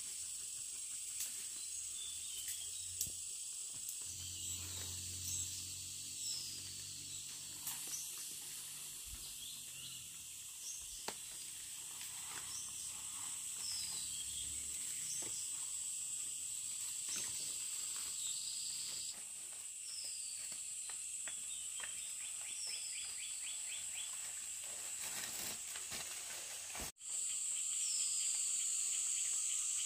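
Outdoor rural ambience: a steady high-pitched insect drone with short falling bird calls repeating every second or two. The sound drops out briefly near the end and comes back louder.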